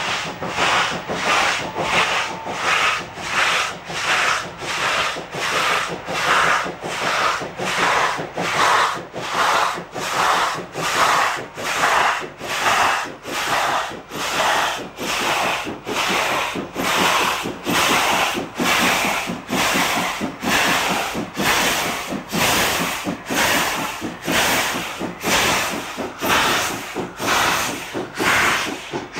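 Steam locomotive working hard with a heavy freight train on a gradient: slow, even exhaust beats, about one and a half a second. Steam is leaking from a cylinder cover, which makes the climb a struggle.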